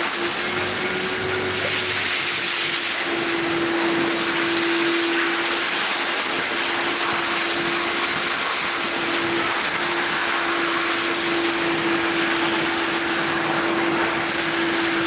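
Car wash machinery running steadily: a constant motor whine over an even hiss.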